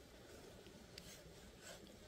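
Near silence: faint background ambience, with one faint click about a second in and a soft faint rasp near the end.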